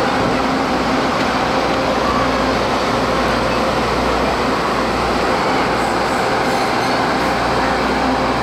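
Taiwan Railways DR1000-series diesel multiple unit rolling slowly along the track, its diesel engines running with a steady hum under the even rumble of the train.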